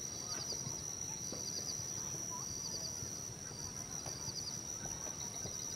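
Tropical forest ambience: a steady high-pitched insect drone, with short chirping trills repeating about once a second and faint scattered bird calls.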